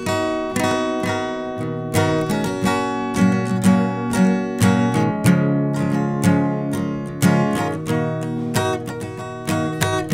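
Background music: an acoustic guitar strumming and picking chords in a steady rhythm.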